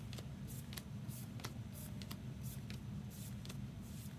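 Trading cards being handled and slid against one another, a soft swish or click about every half second at an uneven pace, over a steady low hum.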